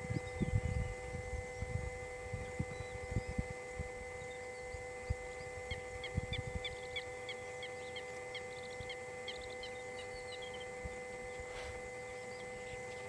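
A steady hum of several fixed tones. A low, irregular rumbling comes and goes over the first few seconds. About six seconds in, a bird gives a quick series of short high chirps that runs for about four seconds.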